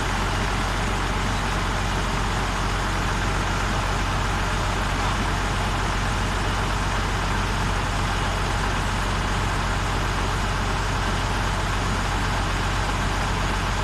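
Large truck engine idling steadily with a low, even hum.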